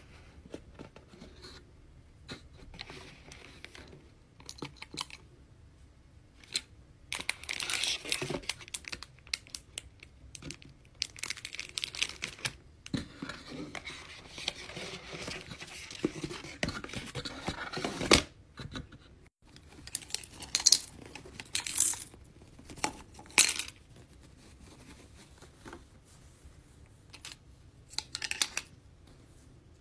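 Diamond painting kit being unpacked by hand: plastic and paper packaging rustling, crinkling and tearing in intermittent bursts, with sharp little clicks and taps as the contents are handled and set down.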